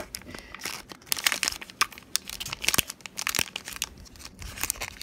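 Foil Pokémon booster-pack wrapper crinkling in irregular bursts of crackles as it is handled.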